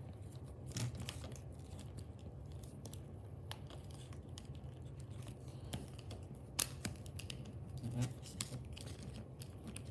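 Scattered light clicks and taps of hard plastic toy parts being handled and snapped together, with the loudest click a little past the middle, over a steady low hum.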